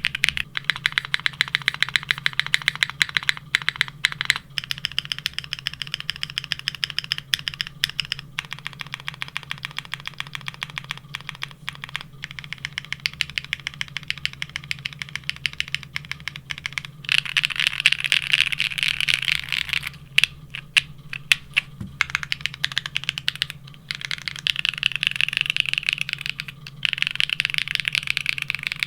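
Continuous typing on a Neo65 mechanical keyboard fitted with DCX-profile ABS keycaps: a steady stream of key clacks, with a few quicker, denser runs of keystrokes.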